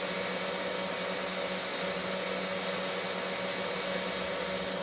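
Mini 4-axis CNC router's spindle motor running free at a steady speed, a steady motor hum and whine, before the cutting program starts.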